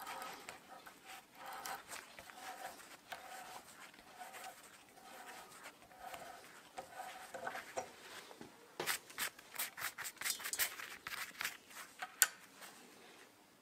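Hand threading die in a die stock cutting a thread onto a bolt, turned in short strokes with a squeaky, creaking scrape of metal on metal. From about nine seconds in, a quick run of sharp metal scraping strokes, roughly three a second.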